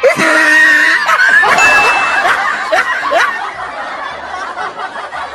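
Children laughing and shrieking, several young voices overlapping, with a short high steady tone about two seconds in.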